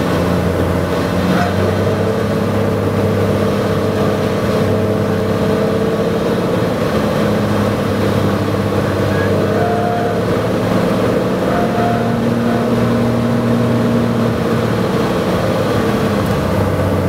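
Cessna 185 floatplane's six-cylinder piston engine and propeller droning steadily, heard inside the cabin on approach to a river landing, with a few slight shifts in pitch.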